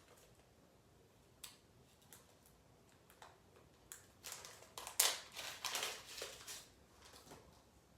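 Plastic packaging crinkling as it is handled, in short scattered rustles that grow busier around the middle, the loudest about five seconds in.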